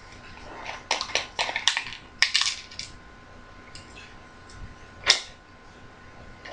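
Lawnmower parts, the shroud and wheels, being handled and fitted: a quick run of clicks and clatters, then a single sharp knock about five seconds in.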